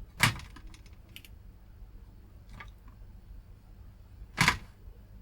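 Two sharp clicks of tools or the board being put down on a workbench, about four seconds apart, with a few faint ticks between.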